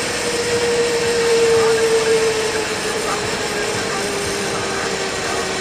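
A vehicle on the move: steady road and engine noise with a droning tone that slowly drops in pitch.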